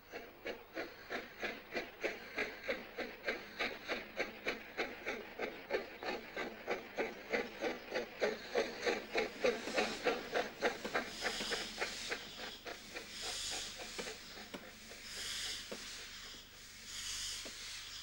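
Steam locomotive exhaust chuffing at a quick, even beat of about three chuffs a second. About ten seconds in it gives way to slower, hissing puffs of steam roughly every two seconds, as from a locomotive starting off with steam escaping at the cylinders.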